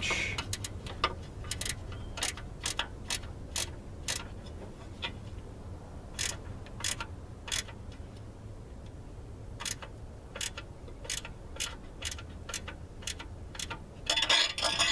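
A 10 mm wrench working a nut on an M6 threaded steel stud: sharp metal clicks, roughly one or two a second, in short runs with brief pauses, and a louder clatter near the end.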